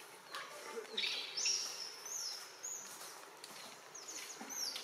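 Outdoor ambience with short, high-pitched chirping calls that fall in pitch, coming in several bunches: about a second in, around two seconds, and again near the end.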